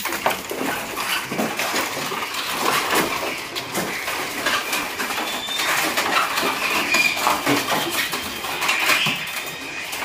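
Many caged small songbirds chattering and chirping together, full of sharp clicks and ticks, with a few short whistled notes about halfway through and near the end.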